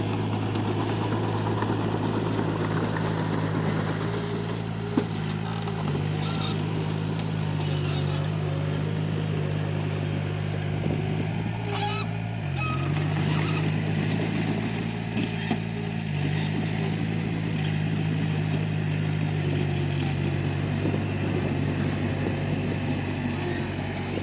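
Komatsu D31P bulldozer's diesel engine running steadily under load, its drone dipping and shifting pitch a few times, with two sharp clanks, one about five seconds in and one about fifteen seconds in.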